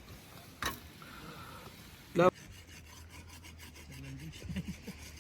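Quick, repeated scratchy scraping strokes start a little over two seconds in and keep going over a low steady hum. Just before them comes a short, loud vocal shout, the loudest sound here.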